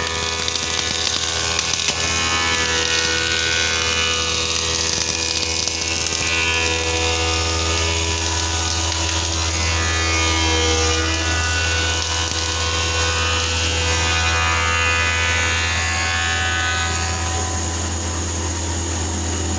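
An electric woodworking power tool running continuously, a steady motor drone with a strong low hum and higher tones that drift slowly up and down as the load on it changes.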